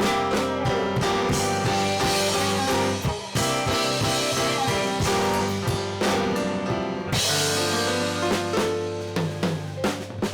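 Live blues band playing an instrumental passage with no vocals: electric guitar, bass, keyboards and drum kit, the drum hits coming thicker near the end.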